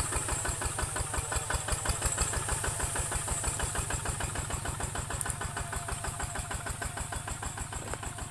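Kubota ZT155 walking tractor's single-cylinder diesel engine chugging steadily under load as it pulls a disc plow through soil, a fast even beat of firing strokes. It grows slightly fainter in the second half as the tractor moves away.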